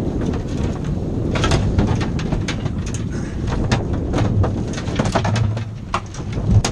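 A steady low rumble of a boat's engine and wind on the microphone, with frequent short knocks and clatters throughout.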